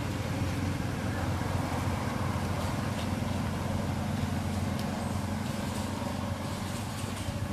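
Steady low hum of an engine running, holding an even pitch, with a few faint clicks.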